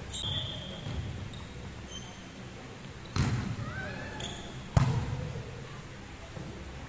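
A volleyball struck twice, about three seconds in and again about a second and a half later, each hit sharp and echoing around a large hall. Sneakers squeak briefly on the court floor between the hits.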